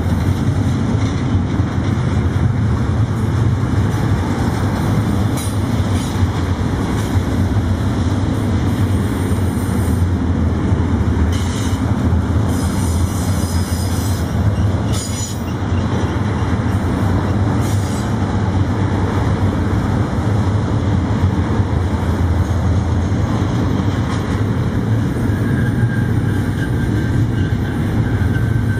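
Double-stack intermodal container train's well cars rolling past: a steady loud rumble of steel wheels on rail. Several brief high-pitched wheel squeals come in the middle, and a thin faint squeal comes near the end.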